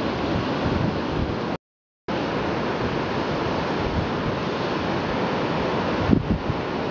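Steady rush of wind across the microphone, with gusts buffeting it near the end. The sound drops out to silence for about half a second about a second and a half in.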